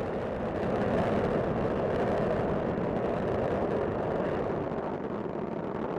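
Space Shuttle Discovery's solid rocket boosters and main engines firing during ascent: a steady, dense rocket noise without breaks.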